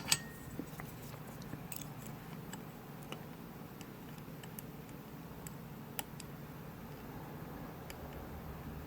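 Faint, scattered metallic clicks and ticks of a lock pick and tension wrench working the pins of a Winkhaus Titan euro cylinder, about half a dozen spread out, with a slightly louder tick near the middle.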